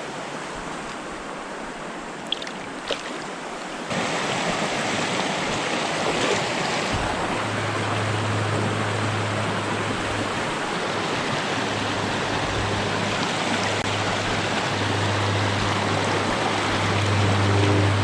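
Fast, swollen creek water rushing steadily, the stream running high after heavy rain. The rush gets suddenly louder about four seconds in, and a low steady hum joins about seven seconds in. Two faint clicks come early.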